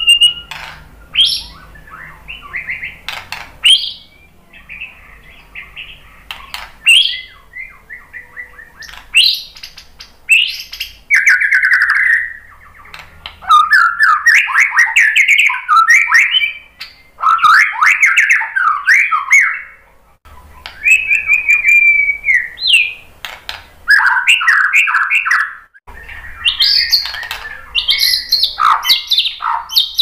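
White-rumped shama singing: a run of loud, varied phrases of clear whistles, rapid trills and chattering notes, with short pauses between phrases.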